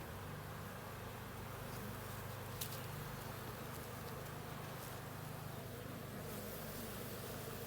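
Honey bees buzzing steadily from an opened hive during a frame inspection, with a single light click about two and a half seconds in.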